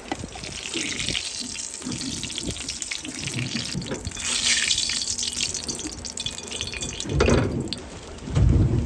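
Water splashing and running in surges, with two strong gusts of wind on the microphone near the end.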